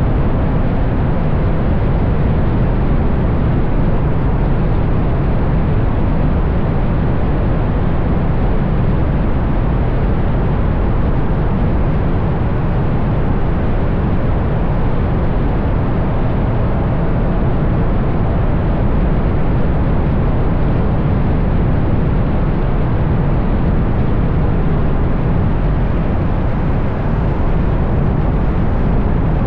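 Steady rush of wind buffeting and tyre noise from a Ferrari GTC4Lusso cruising at speed, picked up by a camera mounted on the outside of the car, with no revving.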